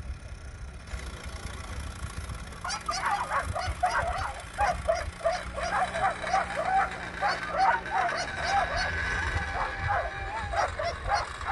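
Excited whippets yelping and whining in quick succession, several high-pitched calls a second, starting about three seconds in: the sound of racing dogs keyed up before the start. A low rumble runs underneath.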